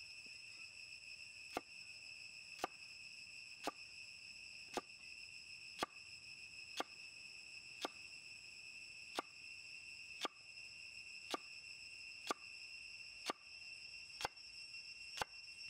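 A cleaver slicing a carrot on a wooden log chopping block, each cut ending in a sharp knock of the blade on the wood, about one a second. A steady high insect drone runs underneath.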